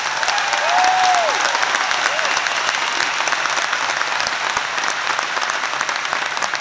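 Large crowd applauding, a dense sustained clatter of many hands clapping, with a brief cheer rising over it about a second in.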